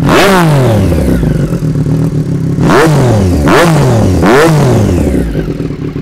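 Triumph Street Triple 765 RS's inline three-cylinder engine, fitted with an SC-Project aftermarket exhaust, revved at a standstill: one throttle blip at the start, then three quick blips a little under a second apart near the middle, each falling back to idle. Very loud.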